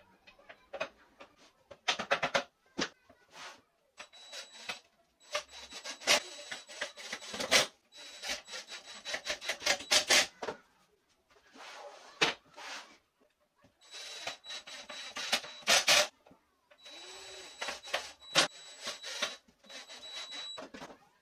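Cordless impact driver driving screws into the wooden frame of a folding drying rack in about six bursts, each a high motor whine over a fast rattling hammer, stopping and starting between screws.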